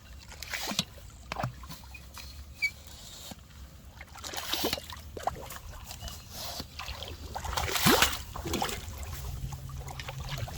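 Water sloshing and splashing, with scattered knocks and clicks; louder surges of water about four and a half and eight seconds in.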